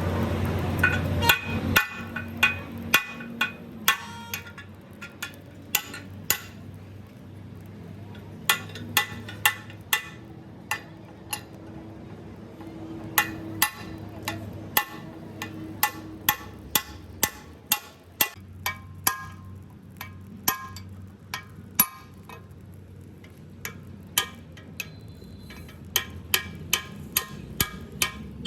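Irregular hammer blows on metal, each a sharp strike with a short ring, roughly one to two a second. Under them runs a low machine hum that drops away about two seconds in.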